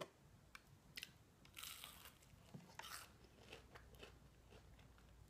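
Faint, scattered crunchy clicks and short rustles as crispy fried onion rings are picked out of a paper bag.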